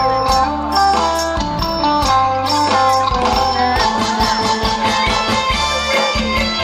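Band music with no singing: an instrumental passage of strummed guitar chords over a steady bass line and drums.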